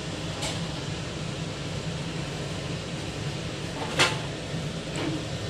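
Steady low background hum with a few short clicks, the clearest about four seconds in, as a hand works over a steel pot of rice.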